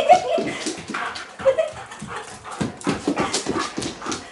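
Large white dog playing excitedly, with many quick knocks and scrabbles of paws and running feet on the wooden floor and a couple of short whimpers from the dog.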